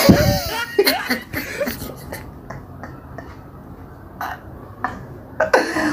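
A man's stifled laughter: chuckles and snorts through a hand held over his mouth, opening with a low thump and dying down to near quiet in the middle before his voice returns near the end.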